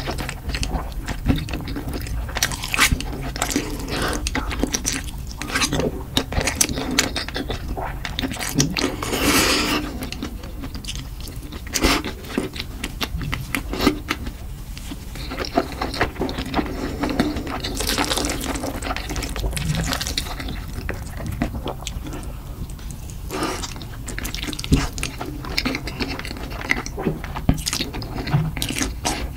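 Close-miked eating of spicy noodles in thick red sauce: wet slurps and chewing with many small smacking clicks, and a longer slurp about a third of the way in.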